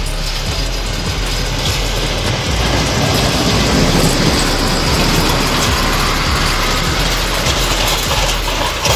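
Heavy snow-clearing vehicles, a motor grader and a Mercedes Unimog with a front plough, running: a steady low engine rumble under a dense, even hiss.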